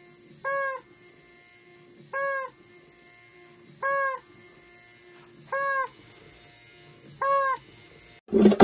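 Rubber chicken squeeze toy squawking five times at an even pace, about every 1.7 seconds, as a motor-driven arm squeezes it. Right at the end a cut brings in a brief, louder, different sound.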